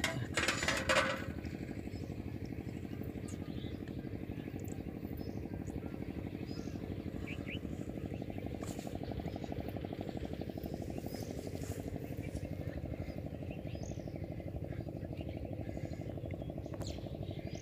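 An engine running steadily in the background, an even low drone with a fine regular pulse. Sharp rustling clicks in the first second, and faint bird chirps.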